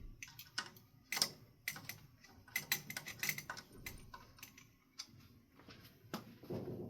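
A quick run of light clicks and clinks, like small hard objects being handled, thickest in the first half. A short muffled sound comes near the end.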